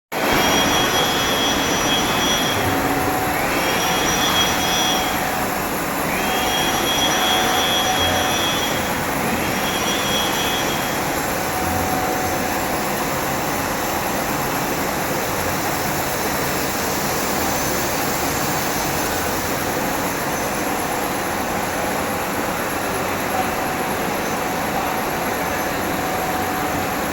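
Cylindrical grinder running with a steady rushing hiss and a constant very high tone. A high whine comes and goes four times, each lasting about a second and a half, during the first ten seconds.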